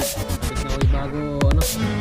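Background electronic dance music, with deep bass notes that slide down in pitch every second or so.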